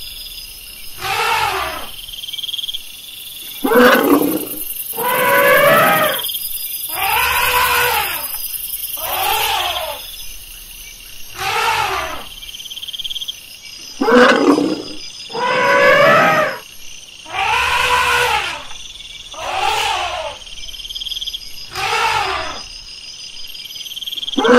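Elephant calls: a series of about a dozen loud trumpeting roars, one every two seconds or so, each sliding down in pitch.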